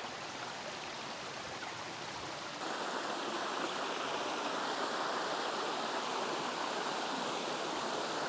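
Creek water flowing steadily, then, about two and a half seconds in, the louder, fuller rush of a small waterfall about ten feet tall.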